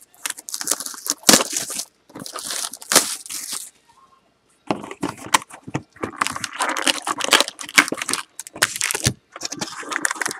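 Plastic wrap crinkling and tearing as it is stripped off a 2012 Panini Prizm Baseball hobby box. After a pause of about a second it resumes as the box is opened and its wrapped card packs are pulled out and handled.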